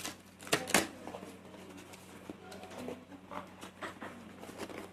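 Packaging of a boxed VR headset being handled and opened by hand: two sharp clicks a little under a second in, then faint scattered taps and rustling.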